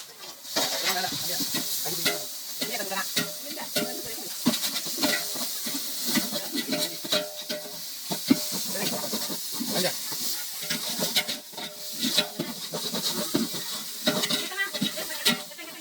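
Curry sizzling as it fries in oil in a cooking pot, with a ladle scraping and knocking against the pot as it is stirred: a steady high sizzle broken by many short scrapes and clicks.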